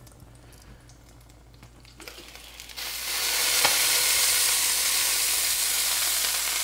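Walleye fillets frying in butter and bacon grease in a cast iron skillet. The sizzle is muffled at first, then turns loud and steady just before three seconds in as the steel melting dome is lifted off the pan, with one light clink soon after.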